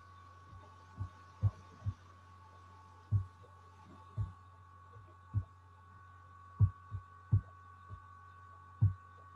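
About a dozen dull, irregularly spaced thumps over a steady electrical hum with a faint high whine. The loudest thumps come in the second half.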